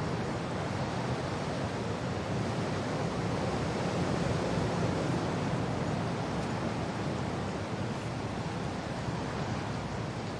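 Wind blowing with rain falling: a steady, dense rush of noise that swells a little about halfway through and then eases.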